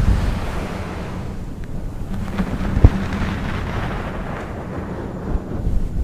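Thunder rolling in a long low rumble, with a sharp crack about halfway through.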